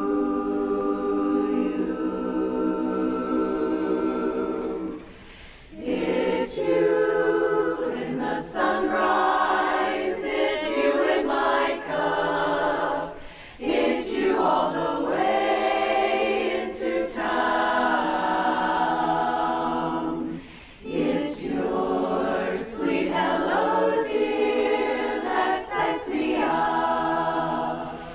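Women's barbershop chorus singing a cappella in close harmony, with short breaks between phrases about five, thirteen and twenty seconds in.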